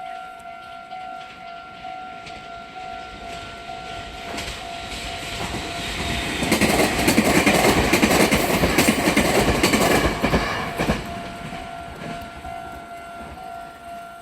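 Meitetsu-type electronic level-crossing warning bell ringing steadily as a Meitetsu Hiromi Line train passes over the crossing. The train grows louder, is loudest from about 6 to 10 seconds in with wheels clacking over rail joints, then fades. The bell stops right at the end.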